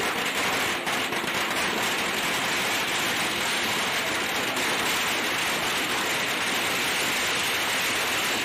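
A long string of firecrackers going off in rapid succession: a dense, unbroken crackle of small bangs.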